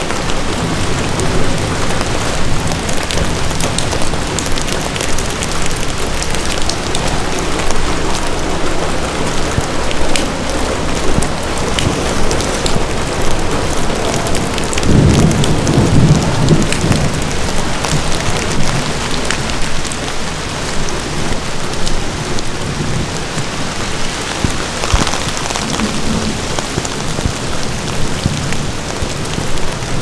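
Steady rain falling on an umbrella and the forest leaves, many separate drops ticking over an even hiss. About halfway through, a low rumble of distant thunder swells for a couple of seconds.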